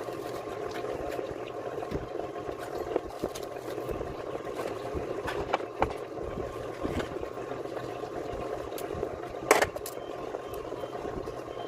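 Steady mechanical running hum with a faint constant tone, broken by scattered clicks and knocks, with one sharp, louder knock about nine and a half seconds in.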